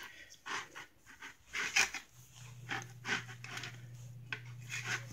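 Knife sawing back and forth through a firm, dense home-baked loaf, about seven uneven strokes. A low steady hum starts about two seconds in.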